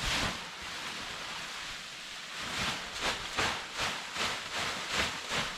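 Steady rustling, then a run of rhythmic crunches in snow, about two or three a second, through the second half.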